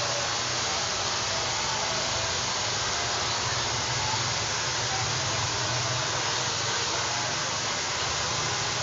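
Hand-held hair dryer blowing steadily as it is worked through long hair: an even hiss of air with a low motor hum beneath.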